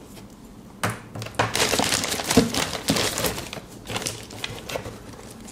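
Handling noise from power-supply cables: irregular rustling with many sharp clicks and knocks, starting about a second in and dying down shortly before the end.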